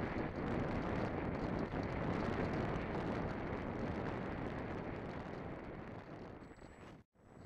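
Wind buffeting the microphone, a steady rushing noise that eases off over the last couple of seconds and drops out completely for a moment near the end.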